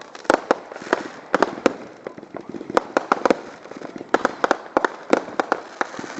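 Consumer fireworks going off in a rapid, irregular string of sharp bangs and pops, about two to three a second, with crackling between them.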